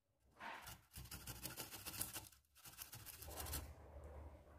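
Garlic cloves being grated: fast, faint scraping strokes against a grater, in two spells with a short break about two and a half seconds in.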